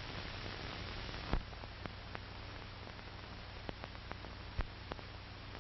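Background noise of an old 1940 film soundtrack: a steady hiss and low hum, with a few scattered clicks and pops.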